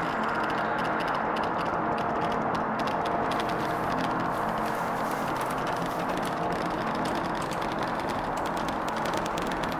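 Steady, dense electronic noise drone from the performance's live electronics, with a few faint held tones inside it and a scatter of fine crackling clicks in the highs.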